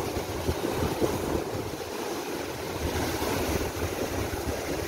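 Rough sea surf washing against the edge of a concrete boardwalk: a steady rush of water, with wind gusting on the microphone.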